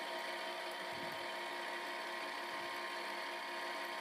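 Steady machine hum made up of several constant tones over a low hiss.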